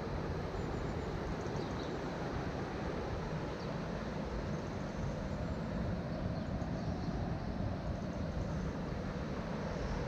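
Steady rushing of river water pouring over a weir, an even, unbroken roar.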